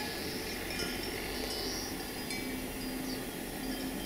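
Livestock bells clinking on a hillside pasture, with a few short bird chirps over a steady outdoor ambience.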